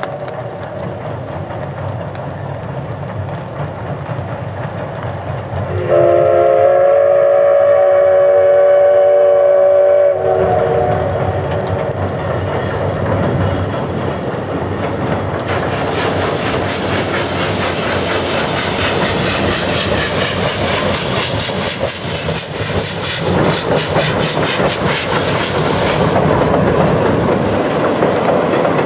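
Steam locomotive's whistle sounding one loud, steady chord for about four seconds, starting about six seconds in. Then the steady rumble and clatter of the train running along the rails, with a high hiss that swells in about halfway through and stops shortly before the end.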